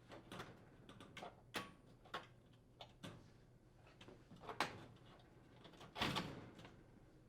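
The main top of an induction range being slid back into place over the coils: faint scattered clicks and knocks of the panel against its brackets, with a longer scrape about six seconds in.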